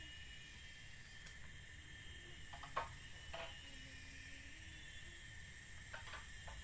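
Steady high-pitched insect chorus of the forest, with a few short knocks and clicks from bamboo being handled on the platform: the loudest a little under three seconds in, one just after, and a quick cluster of three about six seconds in.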